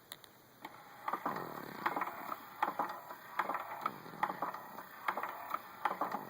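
Newborn baby snoring: a rattling, clicky snore on each breath, repeating a little under once a second, starting about a second in.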